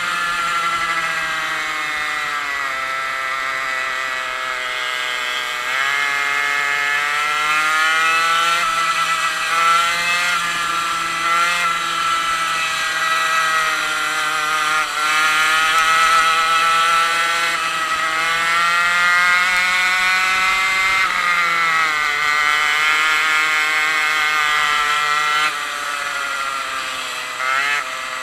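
100cc two-stroke racing kart engine heard from on board, running at high revs. Its pitch falls and climbs again several times as the kart slows into corners and accelerates out.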